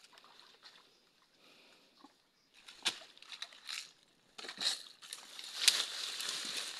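Footsteps crunching through dry leaves, twigs and undergrowth, a few separate steps from about three seconds in, then continuous rustling of brushed vegetation near the end.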